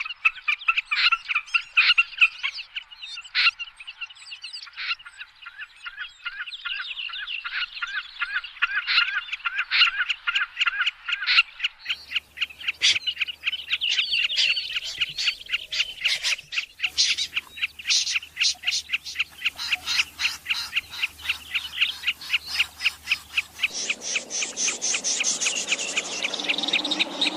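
Recorded bird calls of the kind played to lure migratory birds such as snipe into nets at night: a rapid series of short, sharp repeated notes that speeds up about halfway through. A higher-pitched call takes over near the end.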